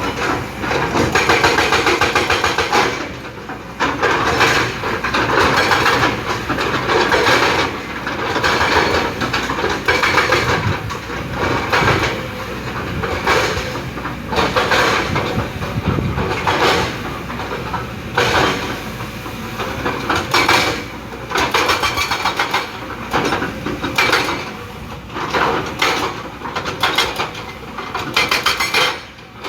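Kobelco hydraulic excavator working rock, its engine running under load beneath a dense, rapid rattling and grinding of steel on stone that comes in bursts of a few seconds with short lulls between.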